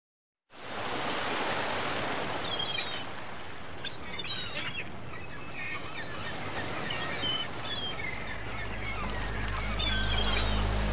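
Birds chirping and calling over a steady, hissing outdoor background. Near the end, low sustained music notes fade in.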